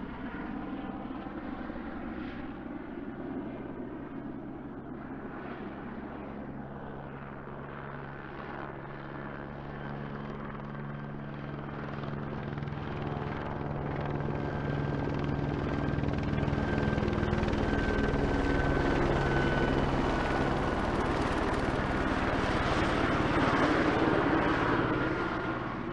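Helicopter passing overhead: the rotor and engine noise grows steadily louder and is loudest about three quarters of the way through, then fades near the end. A faint high whine slides slightly lower in pitch as it goes by.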